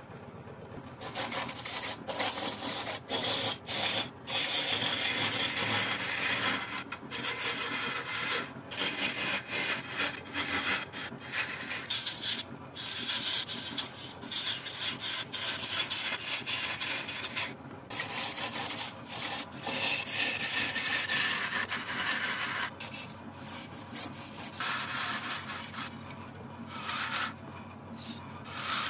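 A wooden vase spinning on a wood lathe while it is worked, a rough scraping and rubbing noise broken again and again by short pauses as the tool or abrasive is lifted off.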